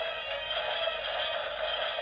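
DX Blazar transformation toy playing an electronic sound effect with music through its small built-in speaker, thin and tinny.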